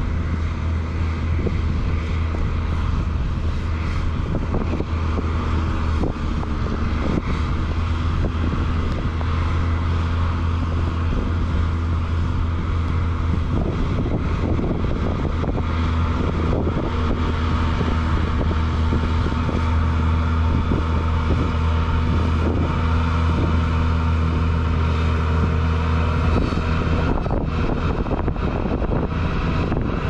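Ventrac 4500Z tractor's diesel engine running steadily, driving a KX480 snowblower, with wind noise on the microphone. The engine note changes a few seconds before the end.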